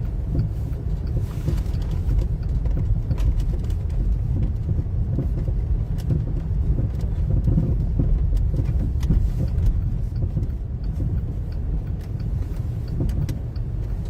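Car driving along a street: a steady low rumble of engine and tyres, with a few faint scattered clicks.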